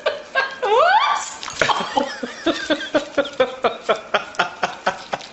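A person laughing: a rising voiced whoop about a second in, then a long run of short, quick laughs, about four or five a second.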